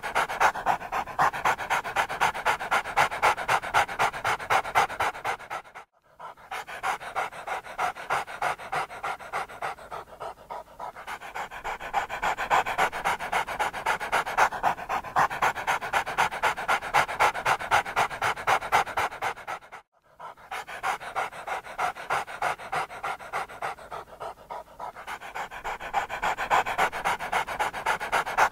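Dog panting rapidly and rhythmically, a few breaths a second, cutting out briefly twice.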